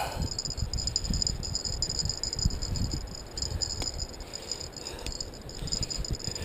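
Wind rumbling on the microphone with rod-and-reel handling noise during a fight with a fish, under a steady, pulsing high-pitched buzz.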